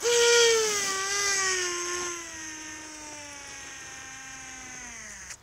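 Fishing reel paying out line on a long surfcast with a 125 g lead: a whine that starts sharply and slowly falls in pitch as the line leaves more slowly, with a hiss of line over it. It stops suddenly near the end as the line stops running out.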